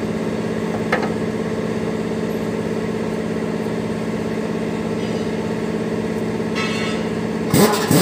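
Mercedes truck diesel engine idling steadily, with a short click about a second in and a brief hiss followed by a loud sudden noise near the end.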